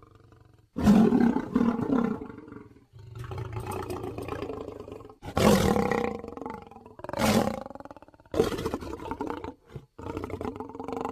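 Demon bear sound effect: a run of about six deep, pitched monster roars separated by short gaps, the first starting just under a second in and among the loudest.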